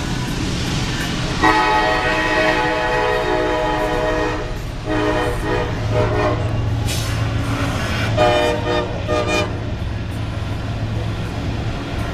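Union Pacific freight locomotive air horn sounding a chord: one long blast starting about a second and a half in, then several shorter blasts, a last group near the end, over a steady low rumble.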